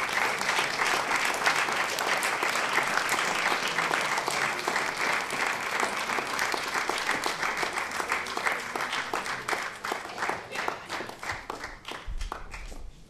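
Audience applauding, a dense run of clapping that thins into scattered single claps near the end and then stops.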